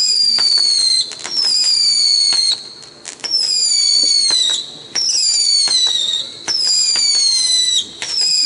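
Whistling fireworks going off one after another: about six shrill whistles, each falling slightly in pitch for a second or so and cutting off sharply, with pops and crackles between them.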